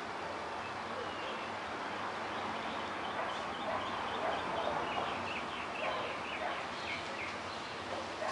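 A bird calling in two quick runs of short high notes, over a steady background hiss.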